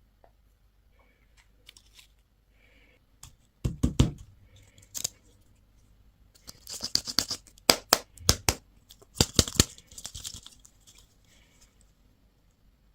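Plastic candy and toy packaging being handled and torn open close to the microphone: a couple of sharp knocks about four seconds in, then several bursts of crackly crinkling and tearing.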